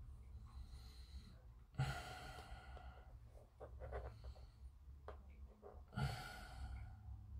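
A person sighing heavily twice, about two seconds in and again near six seconds, with a few faint clicks between the sighs over a low steady hum.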